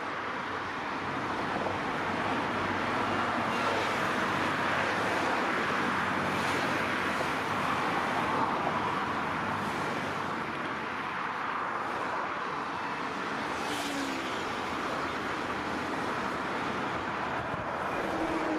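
Steady rushing noise of road traffic, swelling over the first few seconds and then holding steady.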